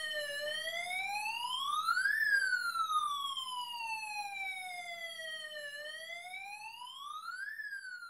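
Electronic police-style siren from a breadboard siren circuit played through a small speaker: one slow wail whose tone climbs over about two seconds, falls over about three and a half, and starts climbing again near the end.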